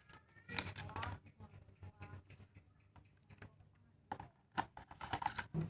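Irregular light clicks and taps of a phone box's contents and packaging being handled during unboxing.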